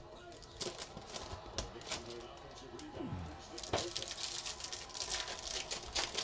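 Foil trading-card pack wrappers crinkling and tearing as packs are opened and handled by hand, in quick irregular crackles that grow denser about halfway through.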